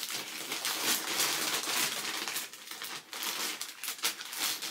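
Plastic packaging crinkling and rustling as it is handled.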